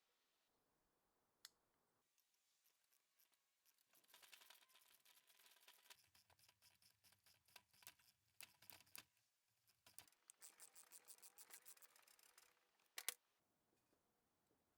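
Faint workshop handwork on metal: runs of quick scratchy clicks and scraping, with a single click early and a sharper double click near the end.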